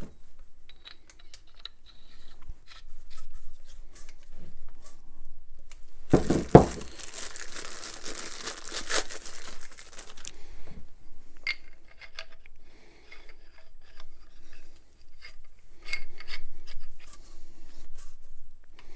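Plastic packaging bags crinkling and tearing as pipe fittings are unwrapped, with small clicks and clinks of metal fittings being handled. About six seconds in there is a thump, then several seconds of dense rustling.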